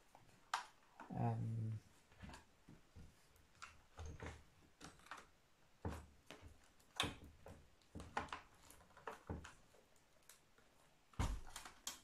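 Scattered light clicks and knocks of loose plastic cover pieces being handled against an all-in-one PC's casing, with a louder knock near the end.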